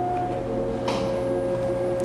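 A steady hum of several held tones. One tone gives way to a slightly lower one about a third of the way in, and there is a brief soft noise just before the middle.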